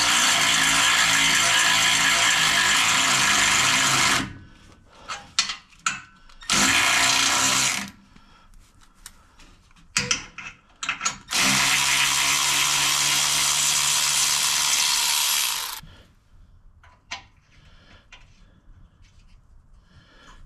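Cordless ratchet running a thread chaser into a damaged threaded hole to straighten the threads. It runs in three bursts: about four seconds at the start, a short one about six seconds in, and another of about four seconds from about eleven seconds in, with clicks and knocks from the tool being handled in the pauses.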